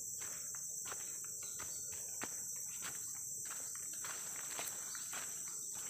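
Steady high-pitched drone of insects, with irregular footsteps on dry leaf litter as someone walks.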